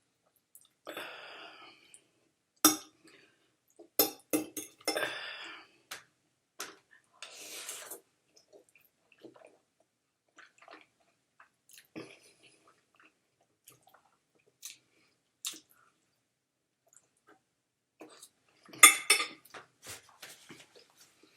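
Eating sounds: cutlery clinking and scraping against a dish in scattered sharp clicks, with chewing of spaghetti in between, and a louder burst of clatter near the end.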